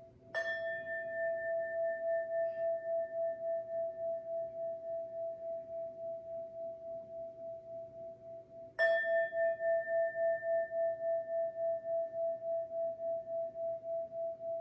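A singing bowl struck twice, about eight seconds apart. Each strike rings on in a long steady tone with a fainter higher overtone, pulsing evenly as it slowly fades.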